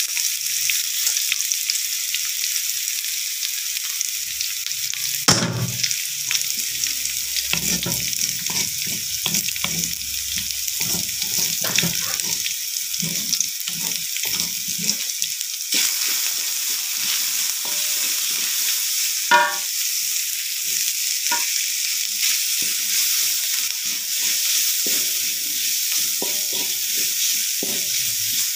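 Ground spice paste, sliced onion and leaves sizzling steadily in a metal wok, with a wooden spatula scraping and knocking against the pan now and then as it is stirred.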